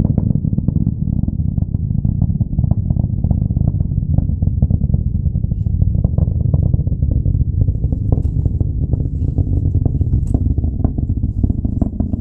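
Distant Falcon 9 rocket engines heard during ascent: a deep, steady rumble with rapid crackling.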